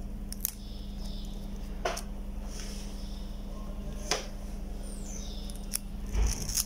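Handling of a swollen phone battery and its flex connector with metal tweezers: a few separate small clicks and ticks, then a soft knock near the end, over a steady low hum.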